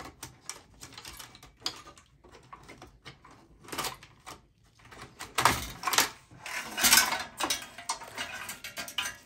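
Desktop PC power supply and its cables being handled and lifted out of a steel computer case: scattered clicks and rattles of metal and plastic, with louder rustling and scraping about five to seven seconds in.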